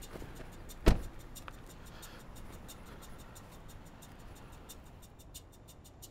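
A car door slams shut once, sharply, about a second in. Quiet background music with a light ticking beat runs underneath.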